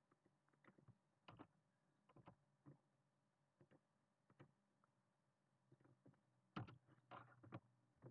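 Faint, irregular computer keyboard keystrokes and mouse clicks, a few at a time, with the loudest cluster a little before the end.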